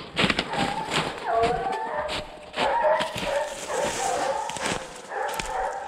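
A pack of scent hounds baying together, several voices overlapping and wavering in pitch: hounds in cry, giving tongue as they run a scent.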